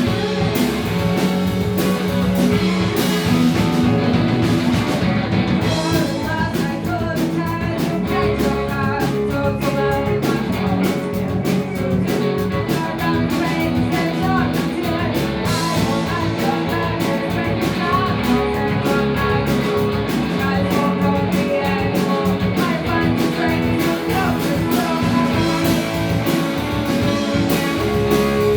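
Live rock band playing a song: electric guitars over a drum kit, with busy cymbal strokes from about six seconds in.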